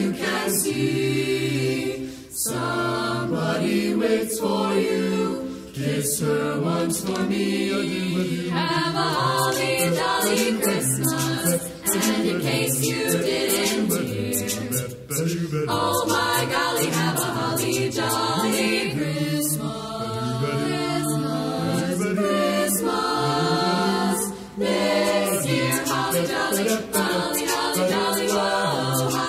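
A group of voices singing a cappella in harmony, with sharp percussive strokes running through the song.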